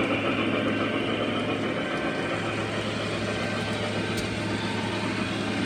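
Model trains running on a large layout: a steady rumble of wheels and motors on the track, with a constant low electrical hum underneath.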